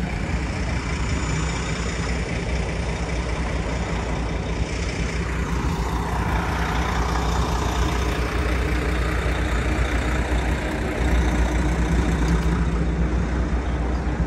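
Street traffic with a heavy vehicle's engine idling, a steady low hum. A passing vehicle swells about six seconds in, and the low hum grows louder near the end.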